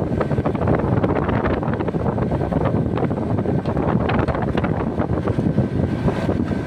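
Carrier air conditioner outdoor unit running steadily while it is charged with refrigerant. The condenser fan and compressor make a continuous rushing noise, with fan air buffeting the microphone and a faint steady whine above it.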